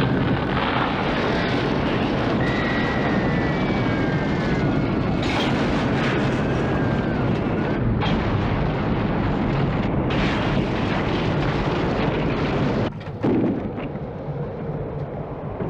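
Film sound effect of a tornado: a loud, steady wind roar with debris cracking and crashing several times. The roar drops off suddenly near the end.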